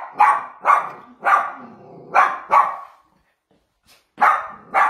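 Young dog barking in a run of five short barks, then after a pause of about a second two more: nervous barking at other dogs behind a gate, which the trainer puts down to insecurity.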